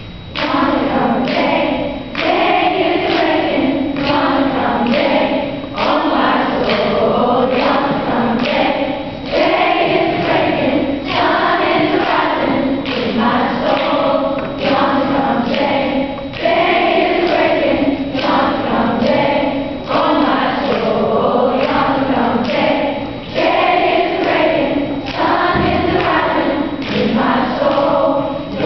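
Choir of young female voices singing together in sung phrases, over a steady thumping beat.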